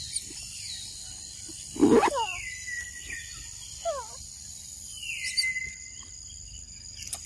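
Forest ambience: a steady high insect drone, with several short falling calls from animals, the loudest one about two seconds in, and a few longer falling whistled notes.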